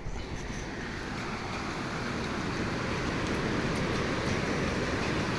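Steady rushing of storm wind and water from Hurricane Nicole, with no distinct events, building slightly over the first couple of seconds and then holding.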